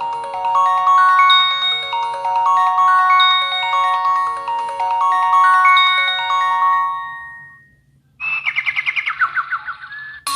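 Samsung Gravity 2 ringtones played through the phone's speaker. A melodic tune of bell-like, marimba-style electronic notes fades out about seven seconds in. After a brief gap a different ringtone of fast warbling chirps, about six a second, begins.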